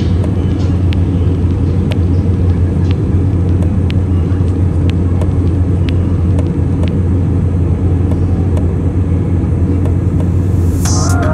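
Steady low rumble of jet engine and airflow noise inside an airliner cabin in flight. Music starts near the end.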